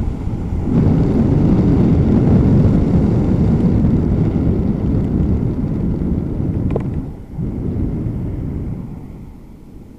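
Wind buffeting the microphone of a camera on a moving bicycle, a loud low rumble that eases off near the end as the bike slows.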